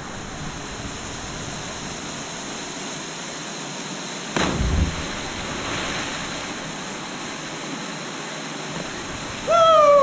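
Steady rush of a waterfall pouring into its pool, with a single heavy splash about halfway through as a cliff jumper hits the water. Near the end a person gives a loud shout that falls in pitch.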